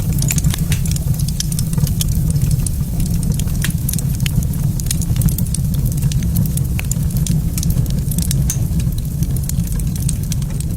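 Wood fire in a fireplace crackling, with frequent sharp pops and snaps over a steady low rumble.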